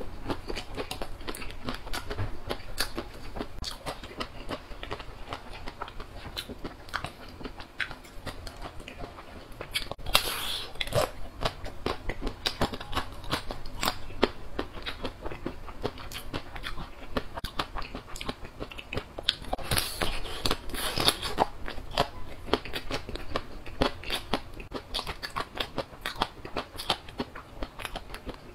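Close-miked biting and chewing of homemade chocolate-coated banana bars studded with nut pieces: a steady run of crackly, crunchy clicks from the hard chocolate shell, busiest about ten seconds in and again around twenty seconds.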